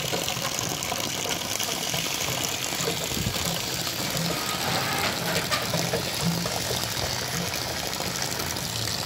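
Water pouring steadily from a tipped large plastic jerrycan into a recharge pit.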